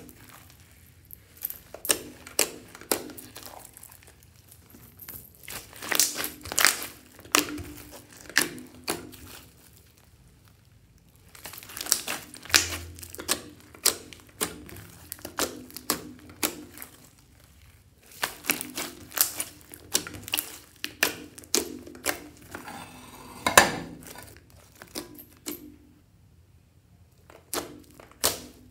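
Hands kneading and squeezing a large mass of fluffy slime mixed with foam cubes and beads, giving runs of sticky clicks, crackles and squelching pops, with two short pauses in the handling.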